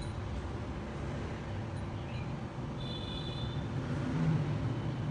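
Steady low rumble of distant road traffic, with a short high whistle-like tone about three seconds in.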